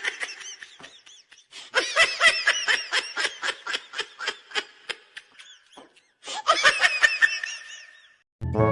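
Laughter in three bouts, each a rapid run of short pitched pulses, the middle bout the longest.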